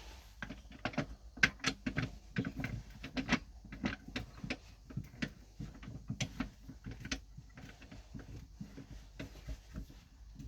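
Irregular light clicks and knocks, a few a second, like small hard objects being handled.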